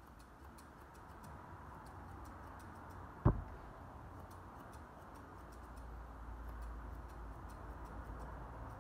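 Grooming scissors snipping through the synthetic hair of a model dog head's wig: a run of light, quick, irregular snips, with one sharp knock about three seconds in.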